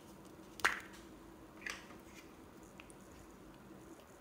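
Round plastic makeup compact being opened: a sharp plastic click about half a second in as the lid comes open, a softer click about a second later, then a few faint taps.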